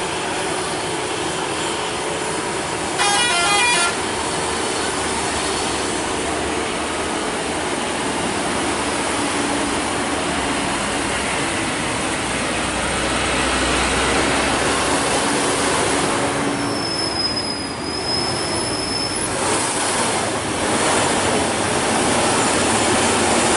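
Heavy trucks labouring up a steep grade: a continuous engine and road rumble that deepens midway, with one short horn blast about three seconds in. A high, steady whistle sounds for about three seconds later on.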